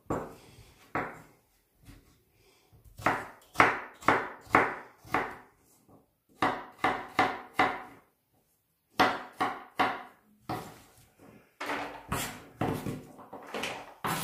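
Kitchen knife chopping raw potatoes into small cubes on a wooden cutting board: sharp knocks of the blade on the board, about two a second, in short runs with brief pauses between them.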